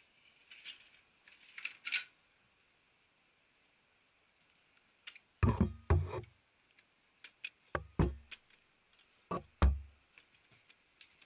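Plastic clicks, light rustles and several dull thumps as a toner cartridge is handled and pushed into the toner slot of a Konica Minolta bizhub C252 colour copier. The thumps come in three groups, about halfway through, then twice near the end.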